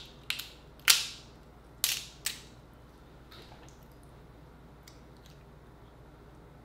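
Cooked Dungeness crab shell being cracked apart by hand: a run of sharp snaps in the first two and a half seconds, the loudest about a second in, then only a few faint clicks.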